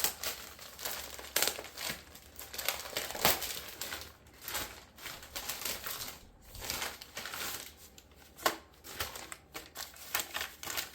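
Packaging crinkling and rustling in irregular crackles as items are pulled out and unwrapped by hand.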